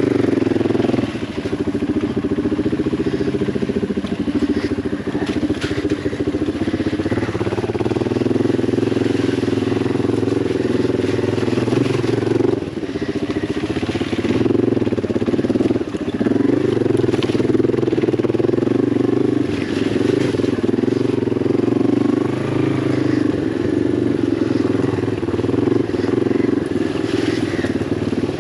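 Yamaha TW200's single-cylinder four-stroke engine running at low revs on a rocky trail, the throttle opening and closing and easing off briefly a few times.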